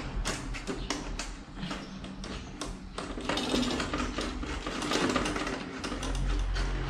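Small irregular clicks and taps of metal parts being handled and fitted by hand on a photocopier unit's sheet-metal frame.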